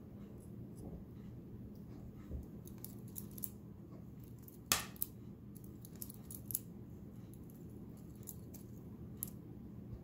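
Small metal keychain balisong (butterfly knife) being flipped by hand. Its steel handles and latch click and clack against the blade in scattered bursts, with one sharp clack just before halfway followed quickly by a second.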